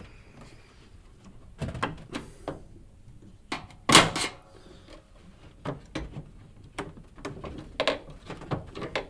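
A screwdriver prying out the plastic clips of an LG washing machine's control panel: a series of scattered clicks and knocks, the loudest a sharp snap about four seconds in as a clip pops free. Near the end come lighter knocks of the plastic and metal panel being handled as it is lifted.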